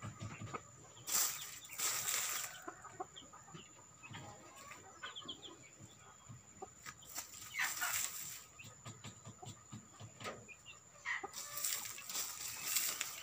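Free-range native chickens (ayam kampung) clucking in short scattered calls, with three louder spells of rustling noise, each a second or two long.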